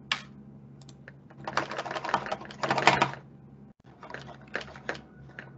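Computer keyboard being typed on in quick runs of key clicks, one run about a second and a half in and another about four seconds in.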